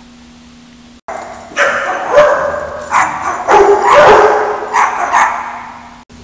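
Dogs barking and yipping in loud, repeated bursts at more than one pitch, starting about a second in after a faint steady hum and cutting off abruptly near the end.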